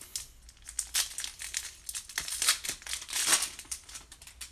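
A foil-and-plastic 2019 Bowman Platinum card pack wrapper crinkling and crackling as it is opened and pulled off the cards. The crackles come in a dense run, loudest near the middle and again a little after three seconds.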